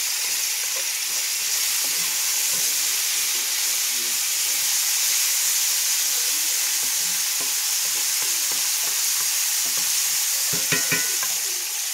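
Pork and sliced mushrooms sizzling steadily in a hot cast-iron skillet as they are stirred and scraped with a wooden spatula. Near the end there are a few short knocks with a brief ring.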